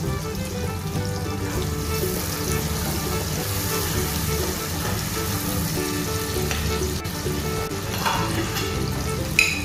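Onions, tomatoes, curry leaves and green chillies sizzling in hot oil in a pot while a wooden spatula stirs them; the sizzle is loudest a few seconds in. A sharp click near the end.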